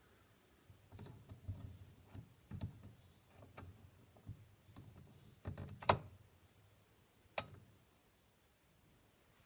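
Irregular clicks and knocks of handling, with some dull thuds in the first few seconds, a sharp click about six seconds in and another about a second and a half later.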